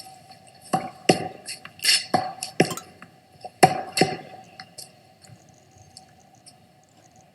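A string of irregular sharp clicks and taps, about a dozen over the first four seconds, over a faint steady tone; then it goes quieter.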